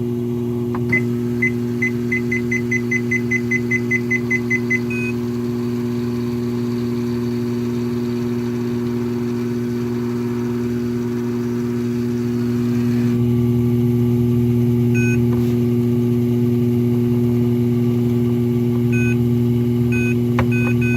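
Treadmill drive motor and belt running with a steady hum. The control panel beeps in a quick run of about sixteen beeps, roughly four a second, in the first few seconds. The running grows louder about two-thirds of the way through, and a few more single beeps sound near the end.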